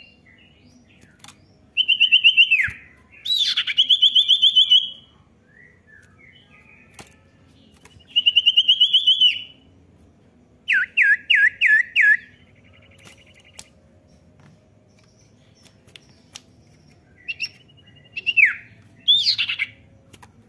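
Common iora (cipoh) singing in short separate phrases: buzzy trills, some ending in a downward slur, and about halfway through a run of five quick falling whistles.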